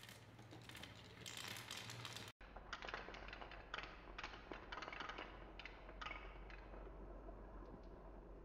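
Glass marbles rolling and clicking along a wooden marble-run track and into a wooden spiral: a quick, uneven run of light clicks and clatters.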